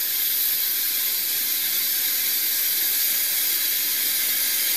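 Pressurised steam from a small homemade boiler hissing steadily and loudly as it escapes through the line to the steam engine.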